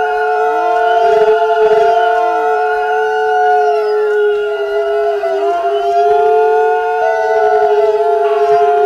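Eerie wailing drone sound effect: several steady pitches held together, with swooping sweeps rising and falling through them.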